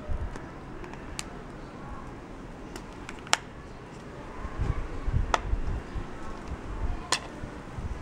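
Sharp plastic clicks and snaps as the back cover of a small mobile phone is prised off: four louder snaps spread across the seconds, over a low rumble of handling noise.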